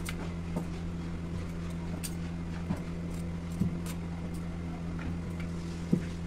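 Rolling pin rolling out dough on a round chakla board, with scattered light knocks and clicks of the pin and glass bangles, over a steady low hum.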